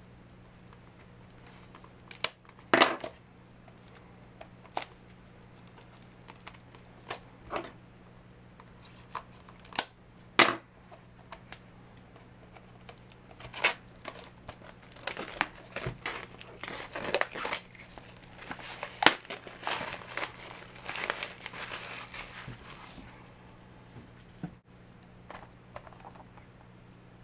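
Plastic shrink wrap on a Blu-ray box set crinkling and tearing as it is unwrapped, with scattered sharp clicks and taps from handling the case. The crinkling is thickest in the second half, then dies down to a faint low hum near the end.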